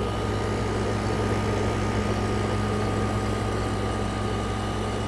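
Frigidaire 5,000 BTU window air conditioner running on high, heard from its outside end: a steady hum of the running compressor with the fan's even rush of air.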